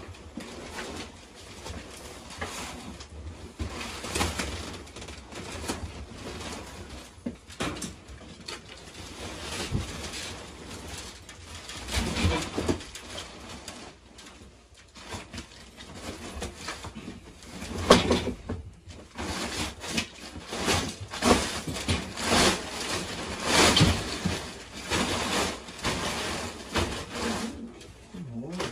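Fabric dust cover being ripped and pulled off the underside of a box spring's wooden frame by hand: irregular tearing and rustling, with louder bursts about twelve seconds in and through the second half.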